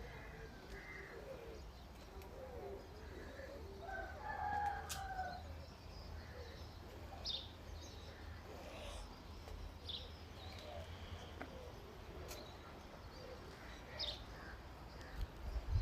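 Birds calling faintly and now and then, with a louder call about four seconds in, over a low steady hum and a few sharp clicks.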